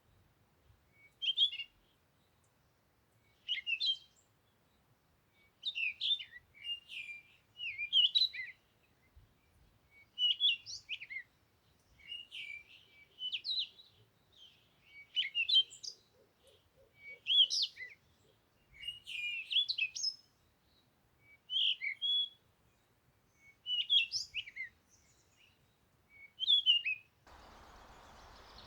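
A songbird singing short, quick warbled phrases, repeated about every two seconds with brief pauses between. Near the end a steady hiss of background noise comes in.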